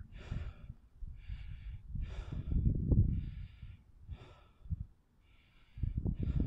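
Wind buffeting the microphone in gusts, strongest about two and a half seconds in and again near the end, with short rasping hisses repeating roughly once a second.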